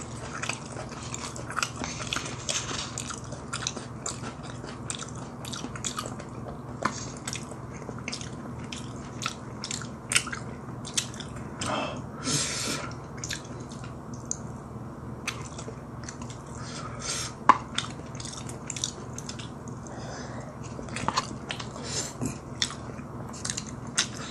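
Close-up chewing and mouth sounds of someone eating a spicy cup-rice dish, with many small clicks and taps of wooden chopsticks against a paper cup. A steady low hum runs underneath.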